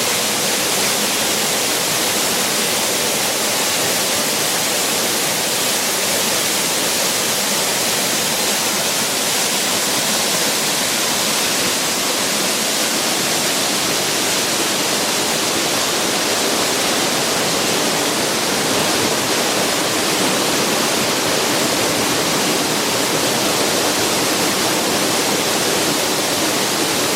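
Waterfall: water falling and splashing into its pool, a steady hiss that stays even throughout.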